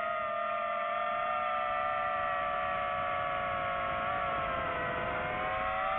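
DJI FPV drone's motors and propellers whining steadily. The pitch sags a little about four to five seconds in, then climbs back near the end.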